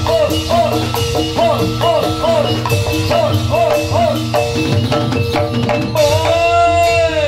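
Javanese gamelan music accompanying a jathilan dance: metallophones play a repeating pattern of notes over drum strokes, with a short sliding tone repeated over and over above them. About six seconds in, a long held tone replaces the sliding figure.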